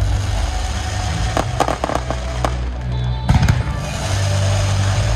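Fireworks going off: a run of sharp bangs and crackles from about one and a half to two and a half seconds in, then a louder group of bangs a little after three seconds.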